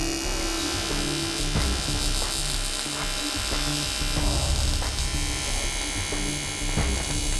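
AC TIG welding arc on aluminium, giving off a steady electric buzz, with background music underneath.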